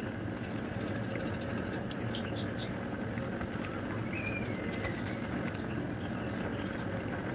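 Yellow fish broth simmering in a wok over the heat, a steady bubbling hiss, with a few light clicks of a metal spoon against the wok and a brief high chirp about four seconds in.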